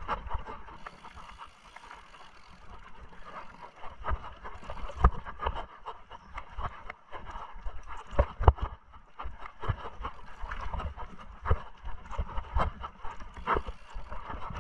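Mountain bike ridden over a rough trail: irregular knocks and rattles from the bike over a continuous rustle of tyres on the ground.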